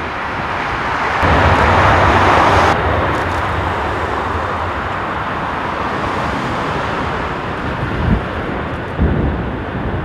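Jet airliners landing (an Airbus A330, then a Boeing 747-400), their engine noise mixed with strong wind rushing over the microphone. A loud swell about a second in stops abruptly just before the three-second mark. Then a steadier rumble and hiss follows, with gusts thumping on the microphone twice near the end.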